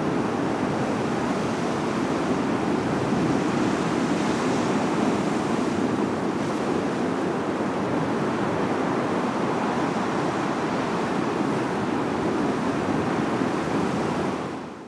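Sea surf breaking and washing over rocks, a steady rush of waves with some wind, fading out at the end.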